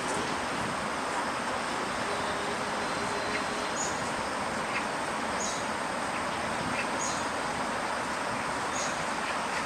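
Steady rushing noise with a short, high chirp repeating about every second and a half from about four seconds in.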